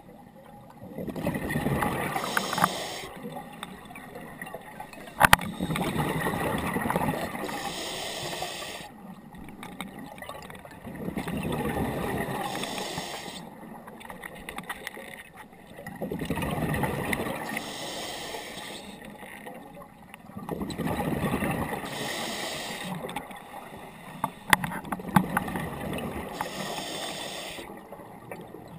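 Scuba diver breathing through a regulator: a short hissing inhale and a gurgling rush of exhaust bubbles, repeating about every four to five seconds. A sharp click about five seconds in and a few more near the end.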